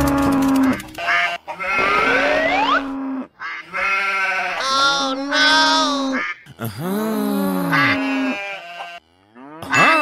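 Cartoon sound effects: a string of animal-like vocal calls, each about a second long, over a steady held music note. Whistle-like glides slide upward about two to three seconds in, and a quick rising sweep comes near the end.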